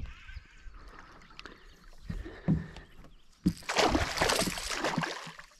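A hooked smallmouth bass thrashing and splashing at the water's surface, starting about three and a half seconds in and lasting about two seconds.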